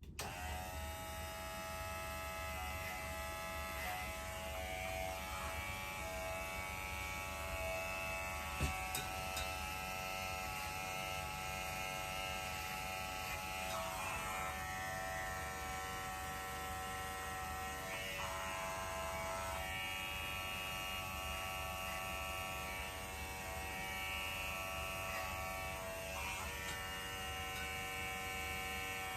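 Electric hair clipper buzzing steadily while trimming the ends of a bob wig, its pitch shifting slightly now and then as it cuts.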